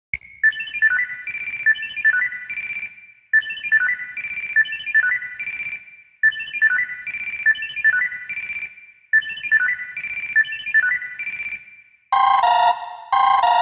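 Samsung Galaxy S2 stock ringtone: a short, bright bell-like melody phrase that repeats four times, about every three seconds. Near the end a different ringtone starts, with quick repeated lower tones.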